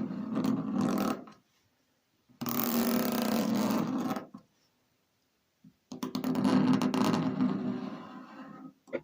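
A writing tool squeaking as it is drawn across a surface, in three long buzzy squeaks with gaps between them, and a short tick near the end.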